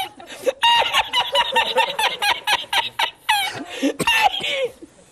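A man laughing in a high, squeaky cackle. It is a fast run of short repeated squeals, about five a second, then a few longer ones that die away near the end.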